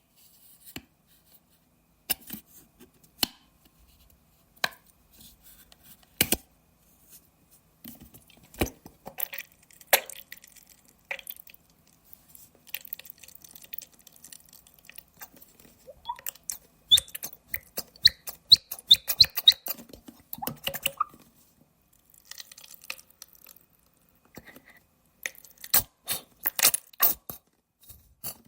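Ketchup sputtering out of a bottle: scattered wet clicks and pops, with a dense run of rapid squelching sputters, some squeaky, about two-thirds of the way through, and another near the end.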